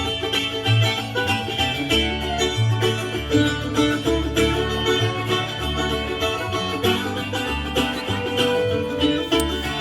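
Bluegrass string band playing an instrumental introduction: quick picked string notes over a bass line that steps from note to note.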